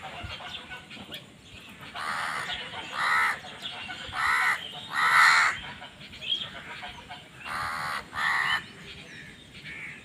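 House crows cawing: six separate caws, beginning about two seconds in, the loudest around five seconds in.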